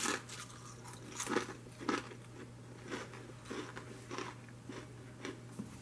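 A person chewing Good Crisp Company aged white cheddar potato crisps: a run of quiet, irregular crunches, roughly one every half second to second.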